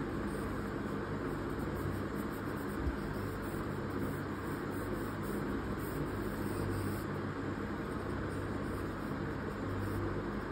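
Steady low hum with an even hiss over it, unchanging throughout, like a running fan or other background machine noise.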